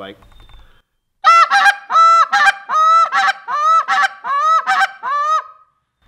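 A goose call blown in the hiccup pattern: a moan followed by a quick double cluck, repeated over and over, meant to sound like several geese squabbling. The notes begin about a second in, each one breaking sharply in pitch, and stop just before the end.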